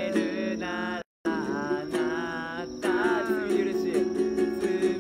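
Men singing a Christian worship song with strummed string accompaniment. The sound drops out completely for a moment about a second in.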